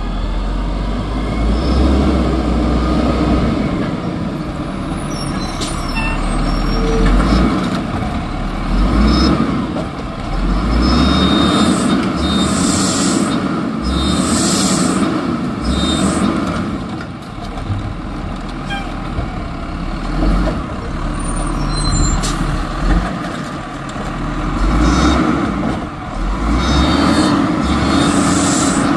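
Volvo side-loader garbage truck's diesel engine running, rising and falling in level every few seconds, with hisses of air brakes.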